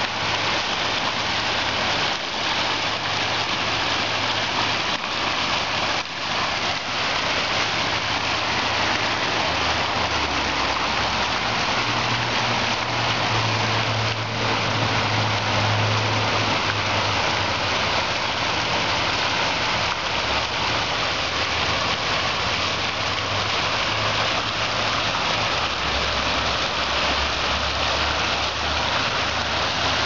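Fountain with several aerated jets splashing down into a round stone basin and spilling over its rim into a pool below, a steady, dense rush of falling water. A low hum runs underneath it, swelling and fading.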